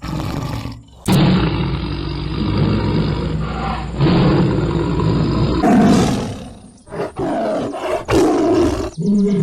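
Tiger roaring and growling: a string of loud roars, spliced together with sudden cuts between them.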